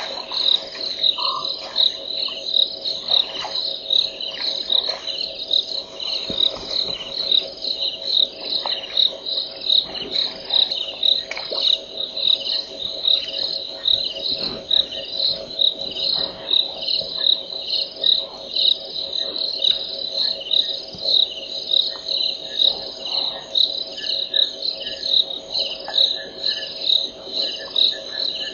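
Night insect chorus: a high chirping that pulses evenly, nearly twice a second, over a steady lower trill from frogs.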